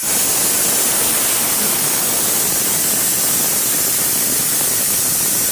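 Steam iron blowing out a continuous jet of steam: a loud, steady hiss that starts suddenly.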